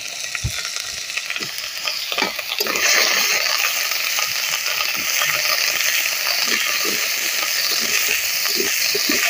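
Onion, ginger, cumin and garlic pastes sizzling as they fry in hot oil in a metal karai, stirred and scraped with a metal spatula. The sizzle grows louder about three seconds in.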